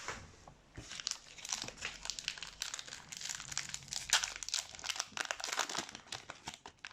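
Plastic wrapper of a 2020 Donruss football hobby card pack crinkling as it is torn open and crumpled by hand: a dense, irregular crackle.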